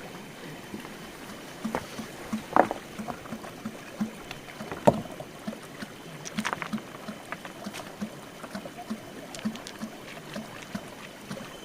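Shallow river water sloshing and splashing in short, irregular bursts over a steady run of flowing water, as people wade and feel for fish by hand.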